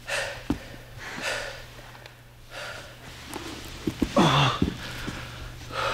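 People breathing hard and gasping after grappling on a mat, with a few light knocks. About four seconds in comes a short grunt that falls in pitch as one of them is pulled up to his feet.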